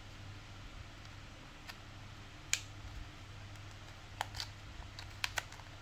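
A handful of sharp plastic clicks and taps from handling a Kemei 1123 foil shaver and pushing its protective cap onto the foil head, the loudest about two and a half seconds in and several close together near the end, over a faint low hum.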